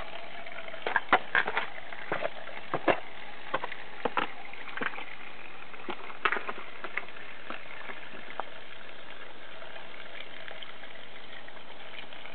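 Natural spring water running steadily from a pipe spout in a rock face, a constant hiss. Scattered crunches and knocks of footsteps on gravel over about the first eight seconds, then only the running water.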